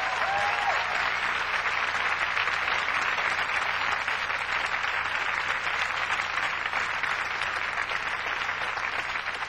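Studio audience applauding steadily, with a short whistle at the start.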